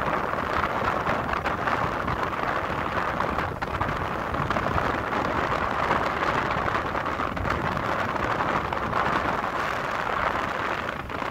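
Steady rushing noise of wind and road from a moving vehicle, starting suddenly and holding level throughout.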